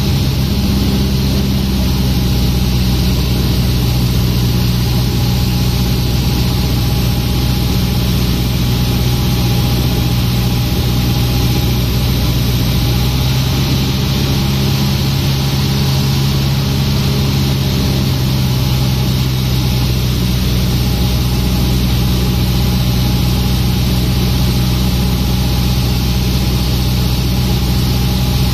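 Cessna 150's four-cylinder Continental O-200 engine and propeller droning steadily from inside the cockpit, at reduced power on final approach to land.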